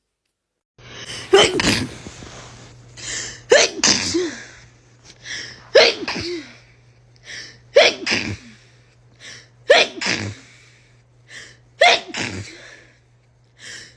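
A person in a sneezing fit, sneezing six times in a row about every two seconds, with a short breath in before each sneeze. A steady low hum runs underneath from about a second in.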